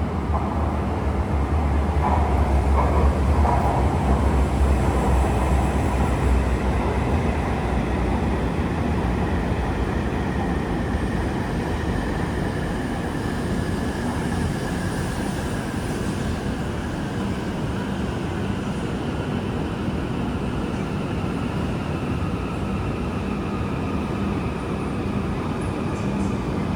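Tohoku Shinkansen train running, a steady rumble and rush of rail noise with a faint electric motor whine that slowly falls in pitch. The low rumble is heavier for the first few seconds.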